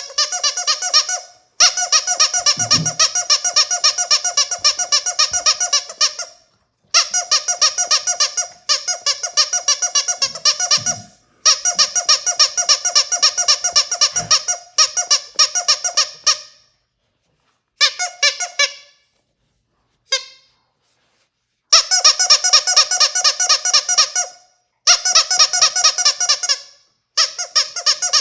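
Rubber squeaky dog toy squeezed over and over, giving rapid high-pitched squeaks in runs of a few seconds with short pauses between.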